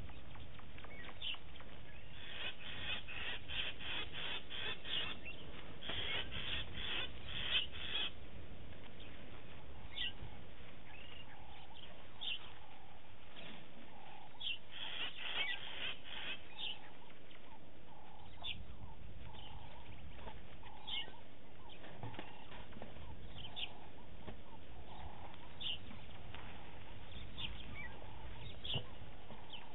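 Wild birds calling at a waterhole: two quick runs of sharp, high chirps, scattered single chirps between them, and a lower call repeated about once a second in the middle stretch, over a low steady rumble.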